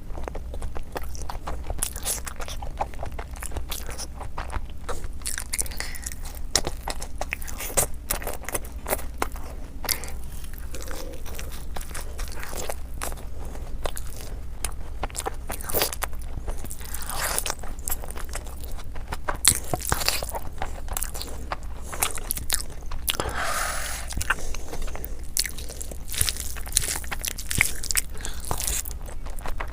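Close-miked eating sounds of a person chewing and biting food, with many small irregular mouth clicks, over a low steady hum.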